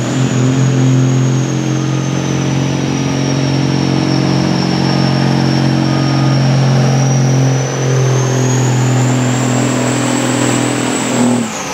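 Peterbilt semi tractor's diesel engine running hard under load, pulling a weight sled, at a steady, held pitch with a high whine over it that dips and then rises. Near the end the engine lets off and the sound drops away.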